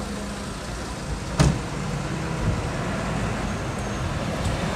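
Steady street ambience with a low traffic rumble, broken by a single sharp knock about a second and a half in.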